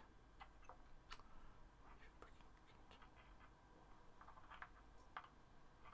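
Near silence with faint, scattered small clicks and scratches of hands working on bass guitar wiring; the sharpest click comes near the end.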